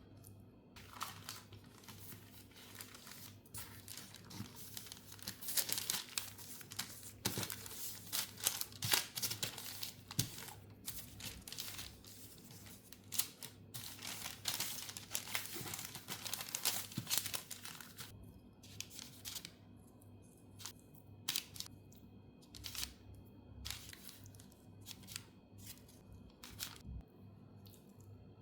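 Repeated crinkling and rustling from hands working in kitchen prep, busiest over the first two-thirds and then thinning out to scattered crackles.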